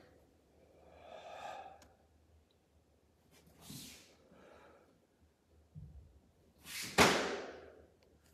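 Barefoot martial artist breathing hard as he finishes a pattern: a short voiced exhale about a second in, a soft foot thud on the mat later on, then a sharp, forceful exhale about seven seconds in, the loudest sound, fading over most of a second.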